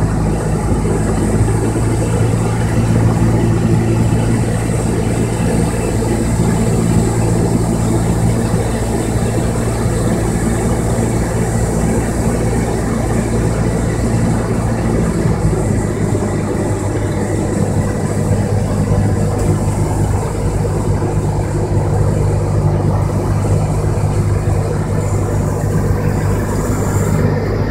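Steady drone of a light aircraft's piston engine and propeller, heard inside the cabin with rushing air noise. The engine note shifts about halfway through.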